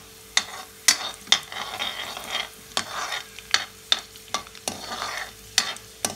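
Steel ladle stirring whole coriander seeds frying in oil in a metal kadai, with irregular sharp metal clicks and scrapes against the pan over a light sizzle. The seeds are being browned for a tadka.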